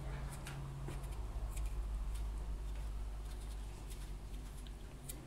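Small kitchen knife peeling a raw potato by hand: light, irregular scraping ticks as the blade cuts away the skin, over a low steady hum.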